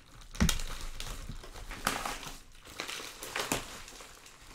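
Padded mailer and bubble wrap crinkling and rustling as the envelope is slit and torn open and a bubble-wrapped box is pulled out. A few sharper crackles come irregularly, about half a second in, around two seconds and again near three and a half seconds.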